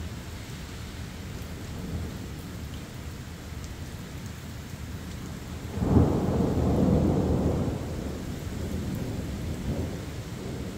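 Steady rain during a thunderstorm, with a sudden loud clap of thunder about six seconds in that rumbles for a couple of seconds before dying back into the rain.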